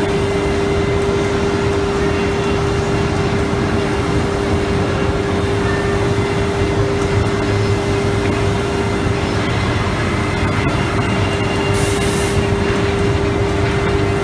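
CNC router spindle routing a door panel, a steady whine over the continuous noise of the cut. A short hiss about twelve seconds in.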